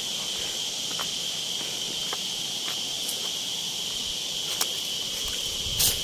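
Forest insects shrilling in a steady, high-pitched drone. A few faint clicks of footsteps on the rocky ground, with a louder scuff near the end.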